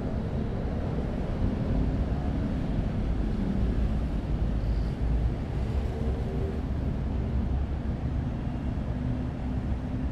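City road traffic: a steady low rumble of passing cars and buses' engines and tyres.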